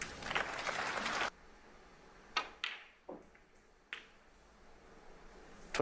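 A short burst of rustling noise, then the sharp clicks of snooker balls. There are a few separate knocks in the middle, and near the end a quick cluster of clicks as a shot is played: the cue tip strikes the cue ball and it hits a red.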